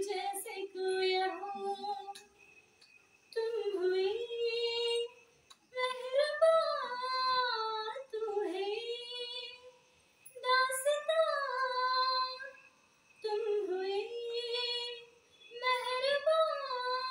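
A woman singing solo without accompaniment, in phrases of two to three seconds with short pauses between, holding and bending notes.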